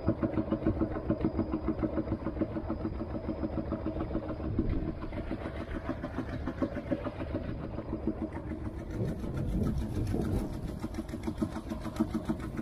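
Tianli 1115 single-cylinder diesel inboard engine of a small boat chugging steadily under way, with an even beat of about four pulses a second.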